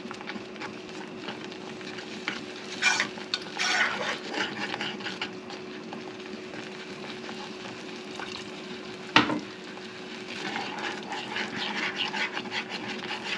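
Metal spoon stirring and scraping thick green-mango sour in a small saucepan on the stove, with a sharp clink against the pot about nine seconds in.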